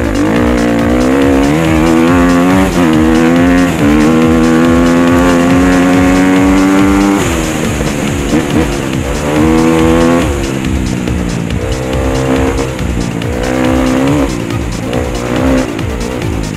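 Dirt bike engine revving up through the gears, pitch climbing and stepping down at each shift, held high for a few seconds, then dropping off the throttle about seven seconds in; shorter bursts of throttle follow. Background music with a steady beat runs underneath.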